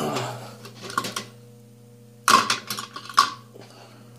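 Small metal hand tools being handled and set down on a workbench: a few sharp clicks and knocks. The loudest is a quick cluster a little past the middle, over a steady low electrical hum.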